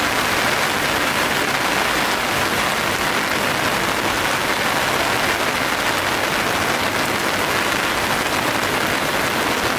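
The Geul river in flood, fast brown floodwater rushing along house walls: a steady, loud rush of water.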